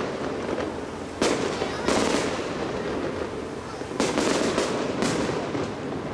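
Aerial fireworks shells bursting over a lake, about four sharp bangs, each followed by a crackling fizz as the stars burn out.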